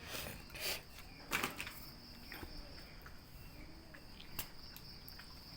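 Steady high-pitched insect chirring, like crickets, with a few faint clicks and rustles, several in the first second and a half and one about four seconds in.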